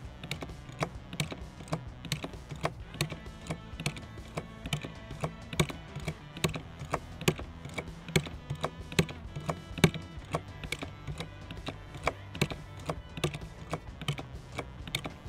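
Hand lever oil pump on a drum being worked stroke after stroke, giving a quick run of uneven mechanical clicks while it pumps engine oil into a mini excavator engine, over background music.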